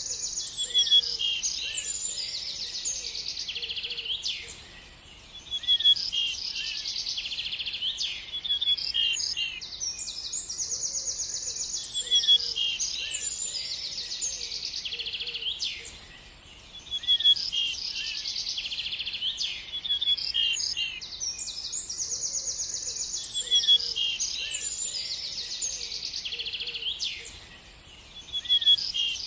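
Several songbirds chirping and trilling together in a dense chorus of high, quick notes. The same stretch of song repeats about every eleven seconds, with a brief lull between repeats.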